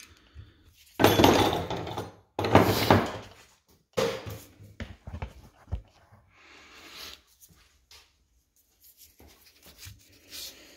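Workshop handling noise from a Fox shock clamped in a bench vise: two louder rasping, scraping bursts about a second in, then a few sharp metal knocks and clunks, fainter towards the end.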